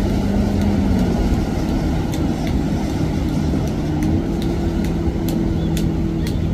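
Motorboat engines running, a steady low drone whose pitch drops about a second in, with sharp ticks coming more often toward the end.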